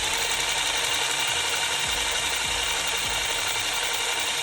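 Small electric drill running steadily, boring a hole into a die-cast toy car's metal body post.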